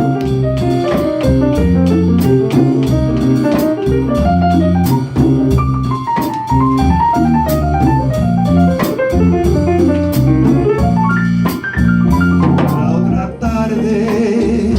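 Live jazz band playing an instrumental break without vocals: a stepping melody over a bass line, with drum-kit cymbal strokes keeping time.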